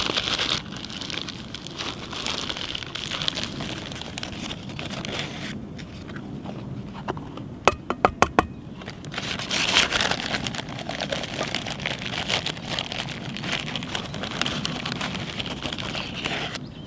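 Flour being scooped with a cup from a rustling plastic bag and poured into a metal camping pot, with a steady rustle and scraping. About eight seconds in there is a quick run of four or five sharp taps.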